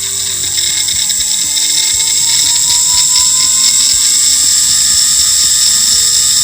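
WM210V lathe's BLDC spindle motor running at high speed: a loud high-pitched whine whose tones rise slowly as it speeds up, with a rough rattle from the worn rear motor bearing.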